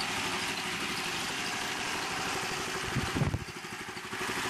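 8 HP Honda single-cylinder engine running steadily while driving alternators, its gasoline line pinched off and fed hydrogen-oxygen gas from two dry cells. About three seconds in, a loud bump on the microphone, after which the engine sounds muffled for about a second.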